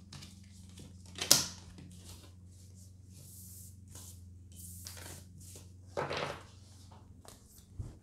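Tarot cards being slid and gathered up off a wooden tabletop: light rustling and scraping, with a sharp tap a little over a second in and a longer, louder scrape about six seconds in.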